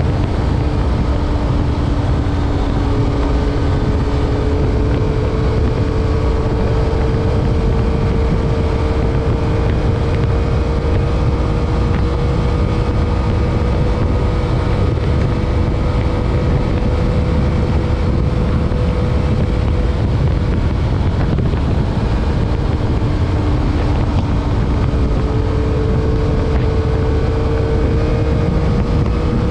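2021 Yamaha MT-09's 890 cc inline three-cylinder engine running steadily under way, its pitch holding nearly level and creeping up slowly, under heavy wind rush on the microphone.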